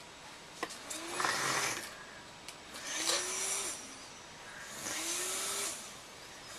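BiPAP machine pushing breaths through a mask: three rushes of air about two seconds apart, each with a short rising blower whine.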